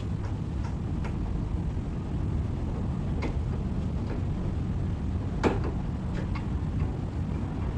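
Scattered light knocks and clicks from a wooden cabinet being taken apart by hand, the loudest about five and a half seconds in, with a few smaller ones after it. A steady low rumble lies underneath.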